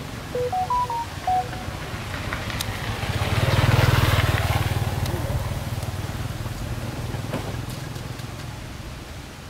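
A passing motor vehicle: a low engine hum and road noise swell to a peak about four seconds in, then slowly fade. Near the start, a short run of electronic beeps steps up and then back down in pitch.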